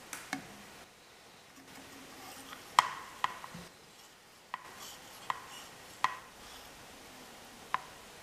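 Light clicks and knocks of a throttle slide and cable being handled and fitted into a Bing 54 carburettor: about eight irregular taps of metal and hard plastic, the loudest about three seconds in.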